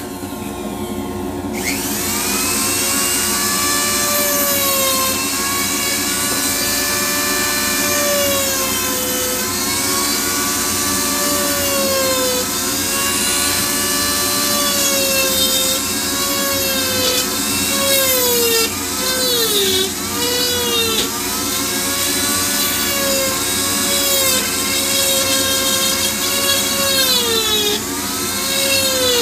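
High-speed rotary tool fitted with a Kutzall reverse cone carving bit, spinning up about two seconds in to a steady high whine. Its pitch sags and recovers again and again as the bit bites into the wood and is eased off, dipping deepest in the middle and near the end.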